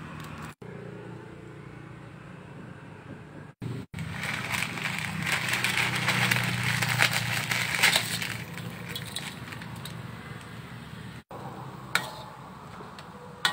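Noodles sizzling in a hot wok, the hiss swelling for several seconds over a steady low hum. A metal ladle clinks sharply against the wok twice near the end.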